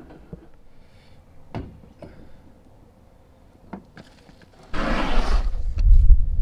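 Wind buffeting the microphone: a loud, rumbling gust comes in about three quarters of the way through, after a few faint knocks and clicks.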